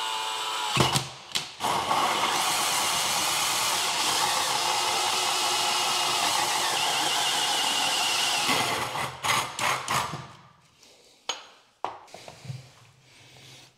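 Cordless drill driving a hole saw through luxury vinyl plank flooring, cutting a round hole over the sewer pipe. A short spin-up is followed by a steady cutting run of about seven seconds that stops abruptly, then a few short bursts of the drill and a couple of light knocks near the end.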